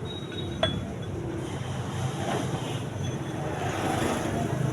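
A steady low engine rumble with one sharp click just over half a second in.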